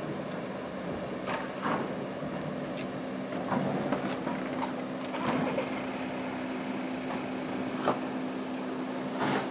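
Steady low machine hum at a waste handling yard, with irregular knocks and clunks every second or so as waste is unloaded from a trailer at a compactor container.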